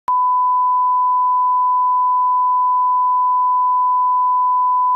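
A steady 1 kHz test tone, the pure unbroken beep of a video's bars-and-tone leader, starting abruptly and holding one pitch and level throughout.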